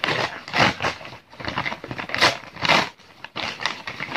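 Brown paper takeaway bag crinkling and rustling in irregular bursts as hands open it and rummage inside.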